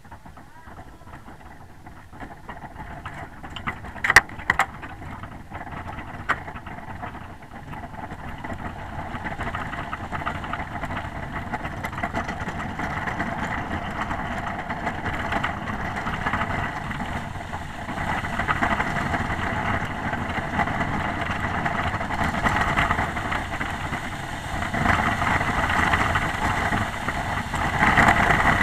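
Bobsleigh runners sliding down an ice track, heard from on board: a rushing, rumbling hiss that grows steadily louder as the sled gathers speed. A few sharp knocks come about four to six seconds in.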